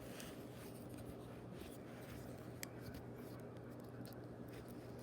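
Faint rubbing and a few light clicks of Leatherman Raptor rescue shears being handled and folded one-handed, over a low steady hum.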